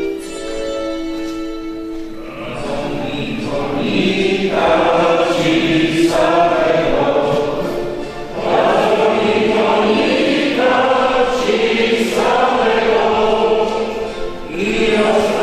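Held instrumental notes, then from about two seconds in a church congregation sings a hymn together, phrase by phrase.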